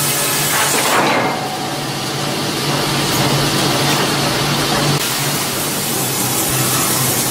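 Sawmill band saw running while it cuts a large log on its carriage, a steady mechanical drone with a low hum, and a brief louder rush about a second in.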